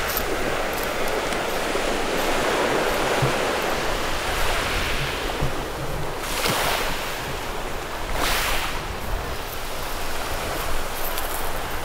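Sea waves washing onto a beach: a steady rushing hiss, with two louder waves breaking about six and eight seconds in.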